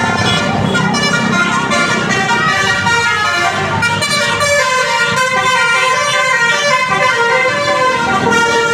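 Bus 'telolet' multi-tone horn sounding a changing run of notes, with the bus engine running underneath.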